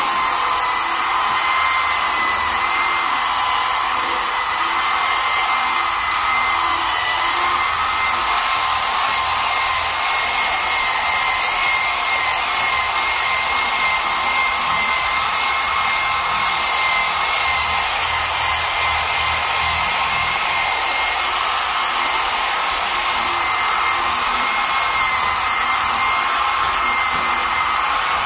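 Electric rotary polisher with a foam pad running against a truck's painted cab panel, machine-polishing the paint: a steady high motor whine that wavers slightly in pitch.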